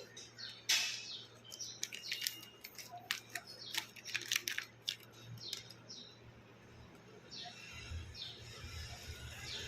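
Plastic soap wrapper crinkling and tearing as a bar of soap is unpacked: a quick run of crisp crackles and clicks that thins out about halfway through, leaving a faint hiss.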